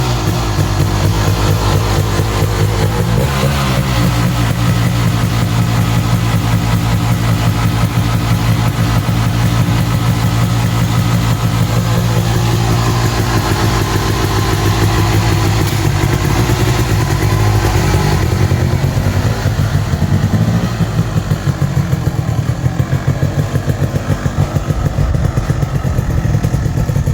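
Dirt bike engine running as the motorcycle is ridden, fairly steady for most of the stretch, then changing in revs around twenty seconds in and going choppier and uneven near the end.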